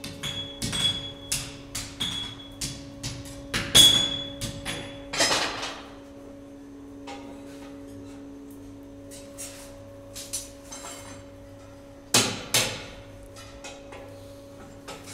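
Blacksmith's hammer striking hot metal on an anvil, about two blows a second with a ringing ping, stopping about five seconds in over a steady hum. About twelve seconds in come two loud metal clanks, then lighter clinks.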